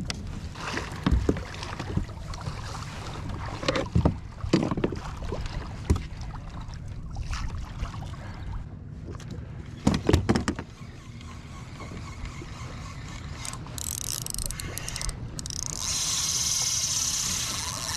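Knocks and thumps on a plastic fishing kayak's hull and fittings as a freshly caught fish is handled and stowed, the loudest about ten seconds in, over steady water noise around the hull. Near the end a steady hiss comes in for about two seconds.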